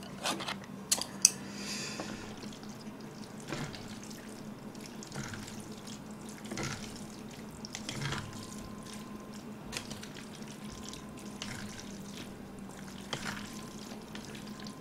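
Chopsticks mixing a plate of stir-fried black bean sauce noodles (gan-jjajangmyeon): soft, wet, irregular squishing as the sauce-coated noodles are lifted and turned. A few sharp clicks come in the first second and a half.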